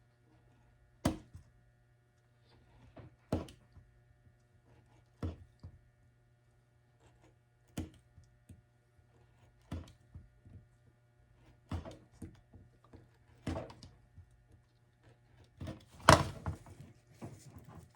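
A series of sharp knocks and thunks from plastic armor parts and tools being handled on a workbench, about one every two seconds, the loudest about sixteen seconds in.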